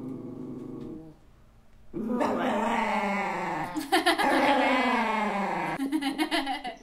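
Small tan dog howling with its head raised, long wavering cries that glide in pitch: one trails off about a second in, and a longer one rises again at about two seconds and runs to nearly six. A woman's voice howls along with it.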